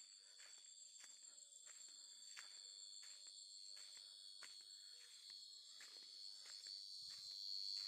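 Faint, steady evening insect chorus: a high continuous trill with a pulsing higher chirp over it, and soft footsteps on a dirt track about twice a second.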